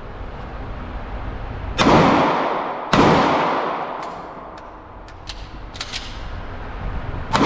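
Two pistol shots about a second apart, each followed by a long echoing decay in the indoor range, then a few faint clicks, and a third shot at the very end.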